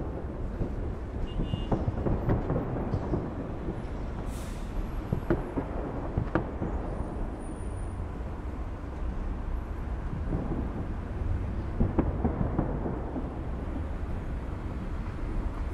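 Fireworks going off: dense crackling over a steady low rumble, with several sharp bangs of bursting shells.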